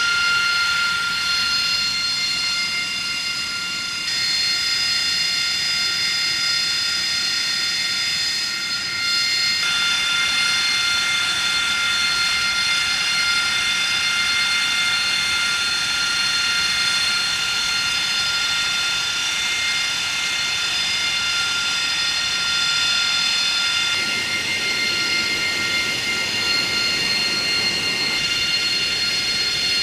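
Jet engine of an AV-8B Harrier II, a Rolls-Royce Pegasus turbofan, running with a steady high whine of several pitches over a loud rushing noise. The mix of tones shifts a few times without a break.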